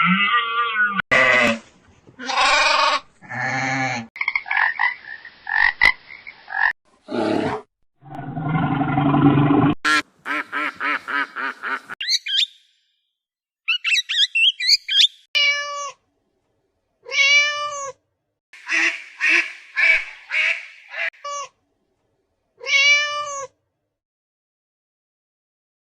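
A run of different animal calls cut one after another: several pitched calls, a fast clicking rattle, high chirps, then a string of short, arched calls repeated with brief silences between them.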